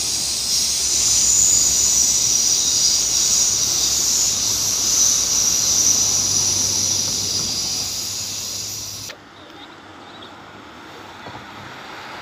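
Red electric multiple unit running along the tracks: a steady, loud high-pitched hiss over a faint low rumble, which cuts off abruptly about nine seconds in and leaves a quieter outdoor background.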